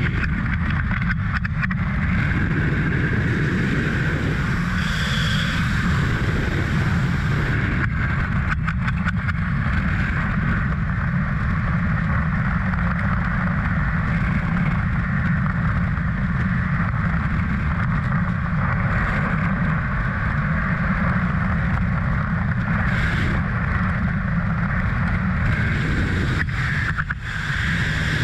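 Loud, steady freefall wind rushing over a skydiving camera's microphone.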